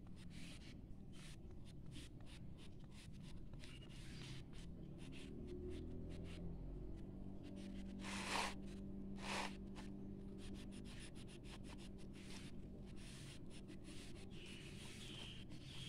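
Green oil pastel scribbling on lined notebook paper in quick, short, faint strokes, shading in leaves. Two louder scrapes come about eight and nine and a half seconds in.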